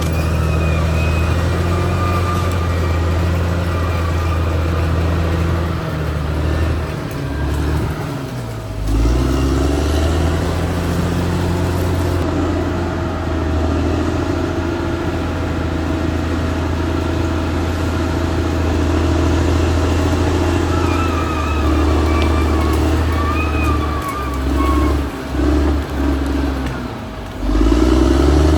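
Caterpillar D6R XL bulldozer's diesel engine running steadily under load, pulling down in pitch and then picking back up twice, about a third of the way in and near the end, with a higher squeal over the top at times.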